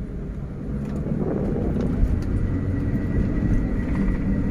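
Traffic and driving noise: a steady low rumble of engines and tyres on the road, growing louder about a second in. A faint steady high whine comes in about halfway through.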